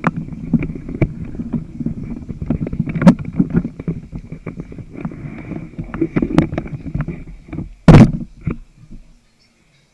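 Handling noise on the camera's microphone: close rubbing and many knocks, with one loud knock about eight seconds in. The sound then cuts off suddenly shortly before the end.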